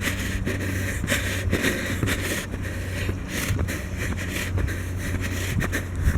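Steady walking noise: footsteps and rustling from clothing and the handheld microphone, about two a second, over a steady low rumble.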